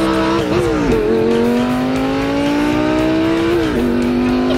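Lamborghini Gallardo V10 engine accelerating hard from inside the cabin, its pitch climbing through the gears. It shifts up about a second in and again about a second before the end, the pitch dropping at each shift and then climbing again.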